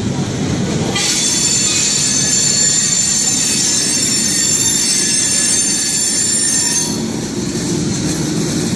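Boxcars of a slow freight train rolling past close by, with a steady low rumble of steel wheels on rail. From about a second in until near the end, the wheels squeal in a cluster of high, steady tones.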